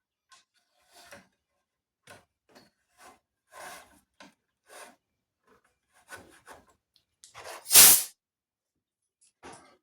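Irregular short scrapes and rubs of metal on wood as a hand-forged drill bit and the bored wood are handled, with one louder rushing burst about eight seconds in.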